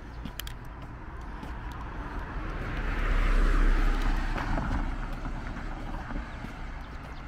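A car passing close by on the street. Its tyre and engine noise swells to a peak about halfway through, then fades as it drives away. Light footsteps tick on the pavement underneath.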